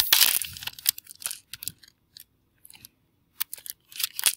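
Typing on a computer keyboard: a string of separate, irregular key clicks, a few a second, as a filename is typed, after a short burst of noise at the very start.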